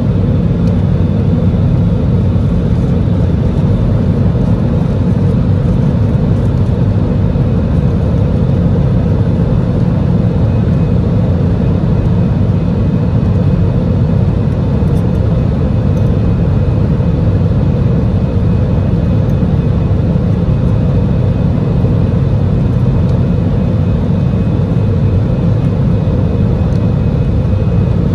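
Steady cabin noise of an Airbus A320-200 climbing out, heard from a window seat over the wing: a loud, even rumble of the engines and airflow with a faint steady whine above it.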